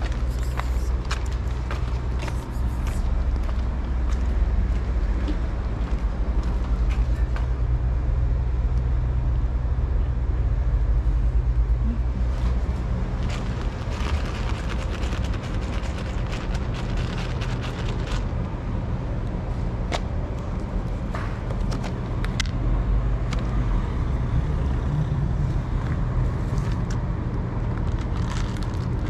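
Steady low rumble of a motor vehicle running, with light clicks and taps scattered over it, thickest in the middle.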